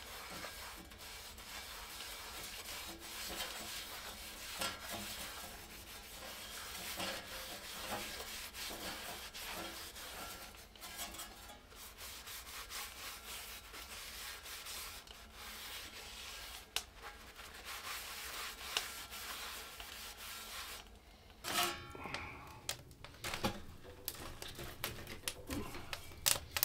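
A cloth rag rubbing oil into a cast iron pan on a steel wood-stove top, a continuous scrubbing sound: the pan is being seasoned after the rust was burned off in the fire. Near the end come a few sharp metal knocks and clanks as the stove door is opened and the pan is handled at the firebox.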